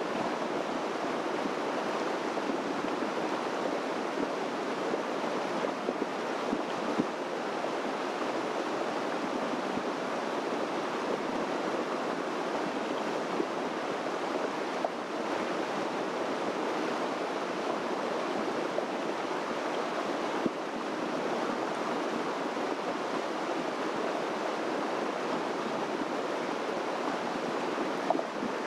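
Creek running steadily: an even rushing hiss, with a few faint ticks.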